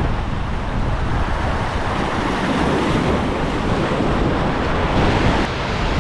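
Surf washing and breaking against jetty rocks, a steady loud rush, with wind buffeting the microphone in a heavy low rumble.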